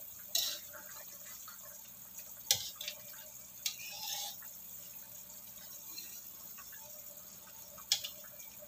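A metal ladle stirring rawon broth in a wok: the liquid sloshes and the ladle clinks sharply against the pan a few times.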